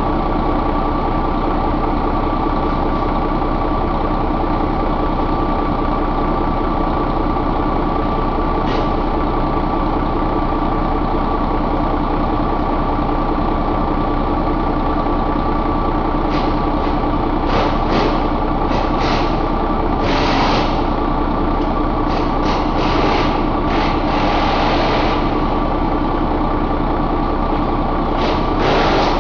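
Mercedes-Benz MBE4000 inline-six diesel engine idling steadily in a truck, with a few short hisses in the second half.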